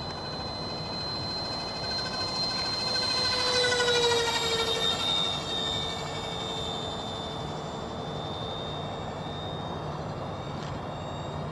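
Twin electric ducted fans of a radio-controlled model Learjet whining as it flies past. The high whine swells to its loudest about four seconds in, drops slightly in pitch as the jet passes, then carries on more quietly.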